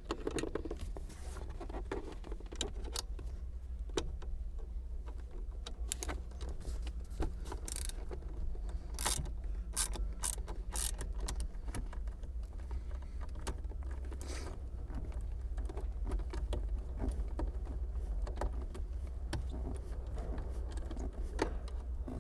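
Scattered clicks and light metal taps of a ratchet with a T30 Torx bit turning out an airbag retaining screw, over a steady low hum.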